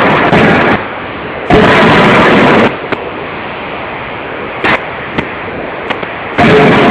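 CNC hydraulic die forging hammer working: three loud noisy bursts about a second long each, with a few short, sharp knocks between them.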